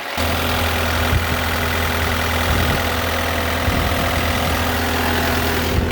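Caterpillar 299D2 compact track loader's diesel engine running at a steady speed, a constant deep drone. The sound drops off sharply at the very end.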